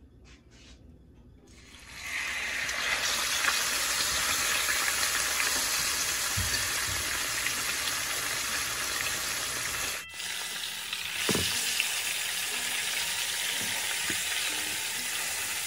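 A whole scored fish sizzling as it fries in hot oil in a wok. The oil is quiet at first, and about two seconds in a loud, steady sizzle starts and keeps on, with a single knock near the middle.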